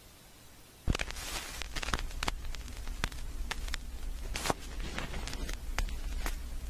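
Handling noise from hair and a hair styling tool being worked by hand: scattered light clicks and short rustles over a steady low hum, starting about a second in after a near-silent moment.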